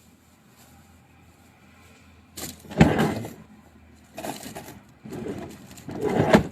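Bursts of rustling and handling noise, four in a row after a quiet start; the first, about three seconds in, is the loudest.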